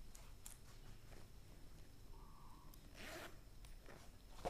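A cheap fabric bag's zipper is drawn once in a short rasp about three seconds in, with faint rustles of thin fabric around it.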